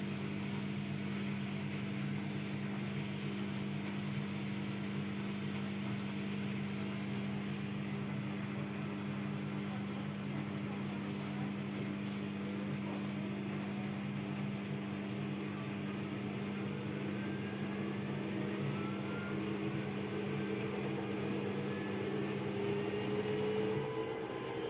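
Haier washing machine in its spin cycle: a steady motor and drum hum, joined over the last several seconds by a rising whine as the spin speeds up.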